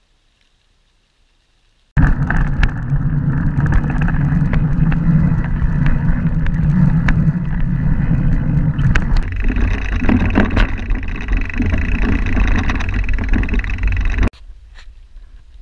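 Wind and tyre roar on an action camera's microphone as a mountain bike rides fast down a paved road. It starts suddenly about two seconds in and cuts off suddenly near the end, leaving quieter rattles and ticks of riding on a dirt trail.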